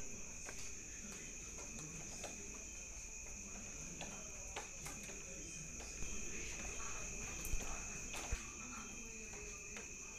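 Steady insect chorus, crickets trilling continuously at two high pitches, with a couple of faint knocks in the second half.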